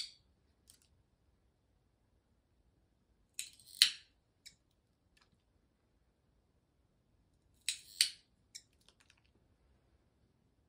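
Cat nail clipper snipping a brown tabby cat's claws: three sharp snips about four seconds apart, each a quick double click followed by a few faint ticks.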